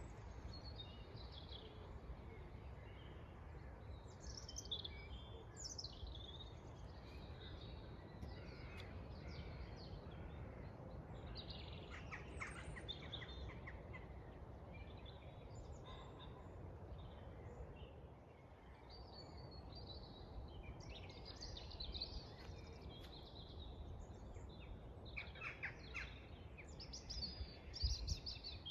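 Dawn chorus: many birds singing and calling at once, short chirps and trills overlapping throughout, over a steady low rumble.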